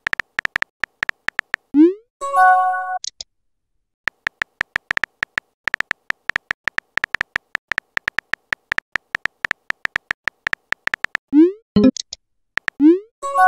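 Texting-app sound effects: a rapid run of keyboard tap clicks as a message is typed, then a short rising pop as it sends and a brief synthesized chime of several notes. A second, longer run of typing clicks follows, ending in two more send pops and another chime near the end.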